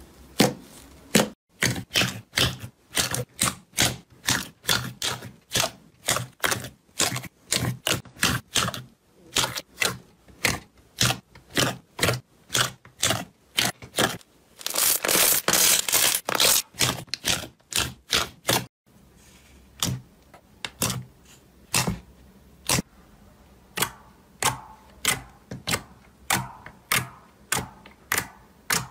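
Hands pressing and poking slime, each press giving a short wet click or pop, about two to three a second. Midway, a couple of seconds of continuous crackling squishing is the loudest part; after that the clicks are fainter and sparser.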